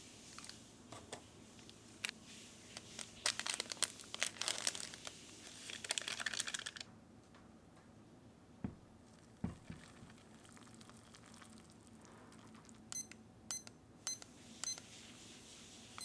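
Plastic packaging crinkling and rustling for several seconds as it is handled, likely an instant-noodle wrapper being opened. Then come two soft knocks, and near the end four or five short high electronic beeps.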